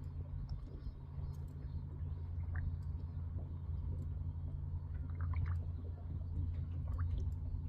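A steady low machine hum, with scattered faint clicks and short squeaks over it.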